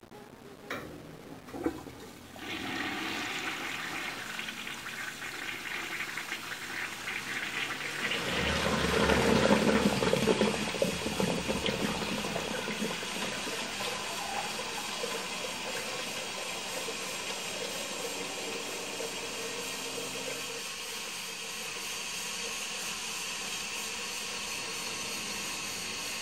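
Toilet flushing: two short clicks, then a rush of water starting about two seconds in that swells to its loudest near the middle. It then settles into a steady hiss like a cistern refilling.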